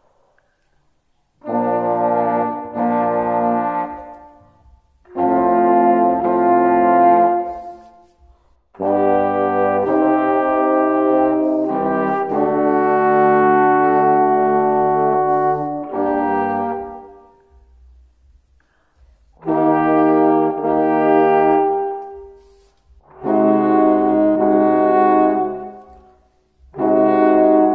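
A solo trombone playing slow, held notes in short phrases, with brief pauses between phrases for breath.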